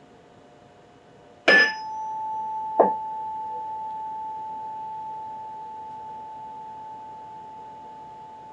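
Tuning fork struck twice, about a second and a half in and again just over a second later, each strike a short metallic clang, then ringing on as one steady pure tone that slowly fades.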